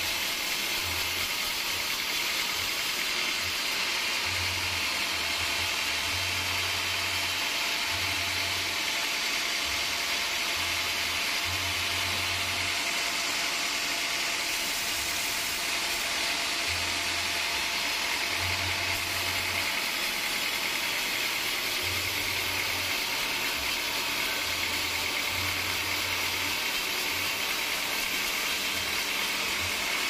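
Band sawmill running steadily, its band saw blade cutting through a large log.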